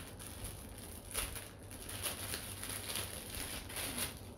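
Clear plastic packaging bag crinkling and rustling in the hands as the ring light's camera holder is unwrapped. Irregular crackles, the sharpest about a second in.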